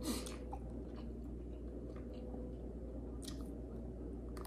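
Faint chewing of a mouthful of shrimp and broccoli, with a few short clicks of a metal fork against a plastic takeout bowl, over a steady low hum.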